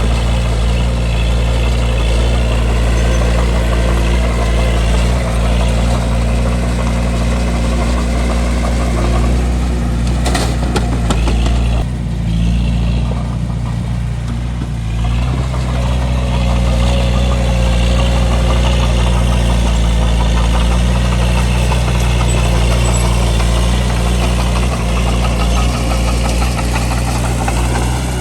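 Bulldozer's diesel engine running steadily with a low, even drone, with a few short knocks about ten seconds in. The higher rattling noise eases for a few seconds about halfway through, then picks up again.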